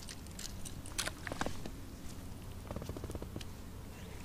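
Faint clicks and rustles of spinning fishing tackle being handled, with a short run of quick ticks about three seconds in.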